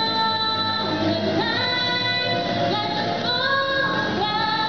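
A girl singing a pop song into a handheld microphone over a backing track, holding long notes that slide between pitches.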